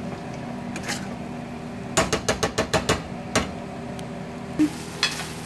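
Beans frying in oil in a stainless-steel pan, with a quick run of about ten sharp metal knocks in the middle as a utensil strikes the pan.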